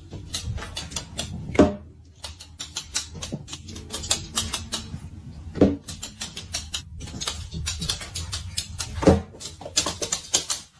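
Irregular clicking and tapping in a small room, with three louder knocks spaced a few seconds apart, over a steady low hum.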